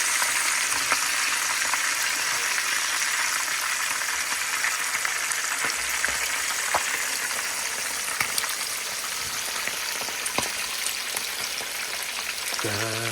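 A whole fish frying in hot oil in a pan, a steady sizzle with a few sharp pops from the spitting oil.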